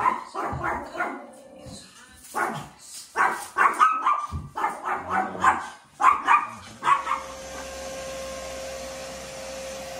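Dog barking over and over in short, quick barks. About seven seconds in the barking stops and a steady machine hum with a constant tone takes over.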